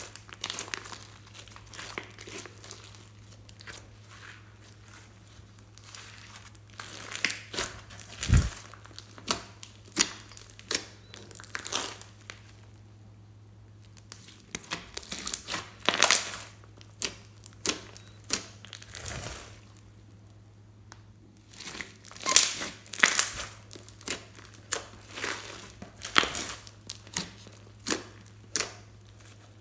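Hands squeezing, stretching and pressing floam slime full of small foam beads: irregular sticky squelches, crackles and pops, with a quiet pause about halfway through. A faint steady low hum sits underneath.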